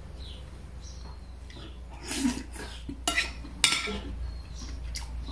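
Metal spoon and fork clinking and scraping against a ceramic dinner plate while scooping rice, with a few sharp clinks past the middle, the last and loudest ringing briefly.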